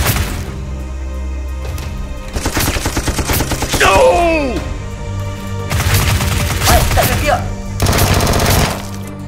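Bursts of rapid automatic gunfire sound effects, three quick volleys, over background music with a steady bass line. A short falling-pitch sound comes about four seconds in.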